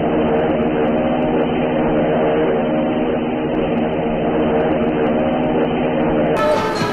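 A ship's horn sounding one long, steady blast on an old, muffled soundtrack with hiss behind it. It breaks off abruptly near the end.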